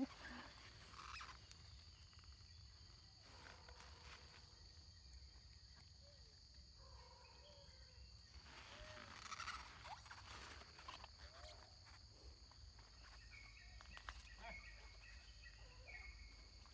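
Quiet forest background: a steady high insect drone, with faint rustling and a few soft squeaks from macaques feeding on fruit. A string of short high chirps comes in near the end.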